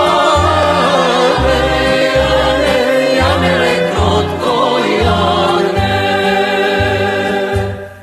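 Singing of a Macedonian folk song: voices over instrumental accompaniment with a pulsing bass beat. The music drops away just before the end.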